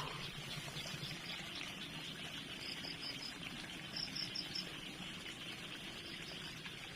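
Outdoor ambience of insects chirping: groups of three or four quick, high chirps repeat over a steady hiss.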